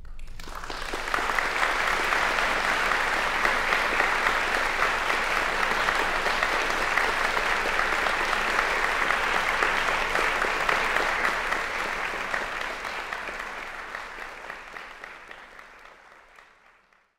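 Concert audience applauding steadily, then the applause fading away over the last few seconds.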